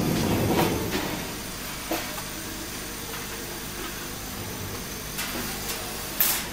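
Light clicks and taps of thin laser-cut steel pieces being handled and lifted out of the sheet, a few separate clicks with the loudest near the end, over a steady mechanical noise.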